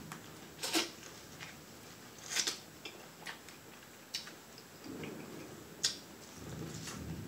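Biting into and chewing corn on the cob close to the microphone: scattered sharp wet clicks and smacks, several seconds apart.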